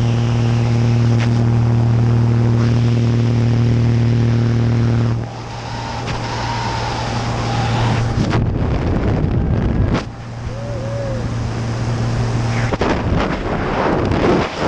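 Steady drone of a small jump plane's piston engine and propeller through the open door, dropping in level about five seconds in. A rush of wind on the microphone grows as the skydivers leave the plane and takes over near the end as they fall free.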